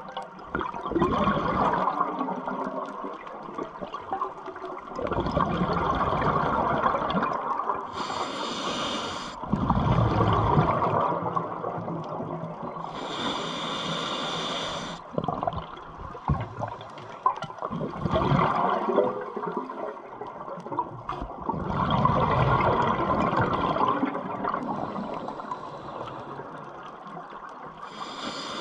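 Scuba diver breathing through a regulator underwater: long bubbling rushes of exhaled air, broken three times by a short sharp hiss of an inhalation through the demand valve.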